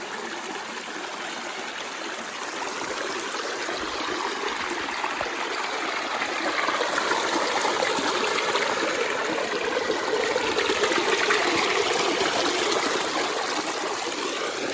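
Stream water running and trickling over rocks, growing louder about six seconds in and easing slightly near the end.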